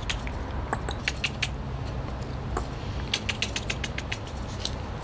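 Quick, light clicking in two runs, one about a second in and one from about three seconds to near the end.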